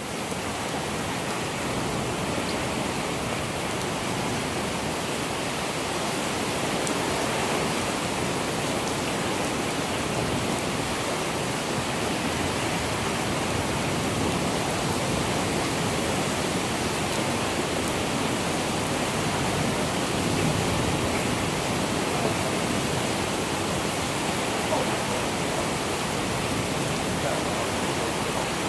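Steady rain from a thunderstorm, an even hiss that holds level throughout, with no thunder yet.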